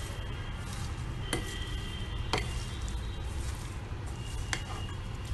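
Silicone spatula stirring chopped salad in a glass bowl, with three sharp taps against the glass, about a second apart and then two seconds, some of them ringing briefly. A steady low hum runs underneath.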